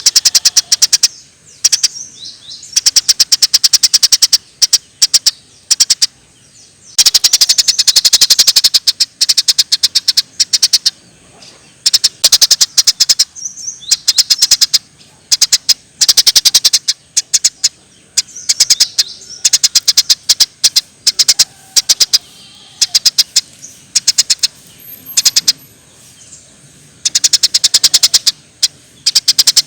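Eurasian tree sparrows chattering in bursts of fast, sharp chirps, each run lasting a second or two with short gaps between runs.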